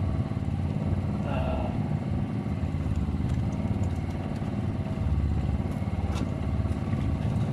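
The engine of a small fishing boat running steadily, a low even hum.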